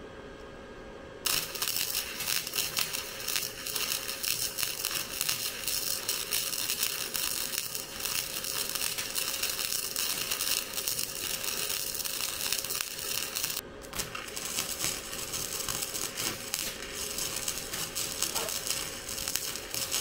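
Small Harbor Freight flux-core wire welder arcing, a loud dense crackle as a bead is run, starting about a second in, breaking off briefly about two-thirds of the way through, then crackling again. The wire speed and voltage are not quite dialed in, which the welder himself says.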